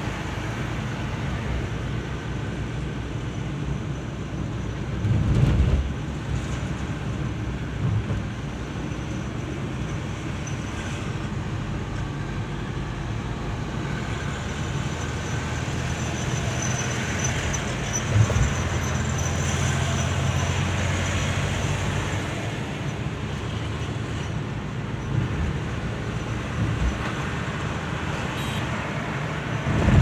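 Steady road noise inside a moving car's cabin: engine hum and tyre rumble at cruising speed, with a few brief thumps from the road surface. Past the middle, the engine note grows stronger for a few seconds.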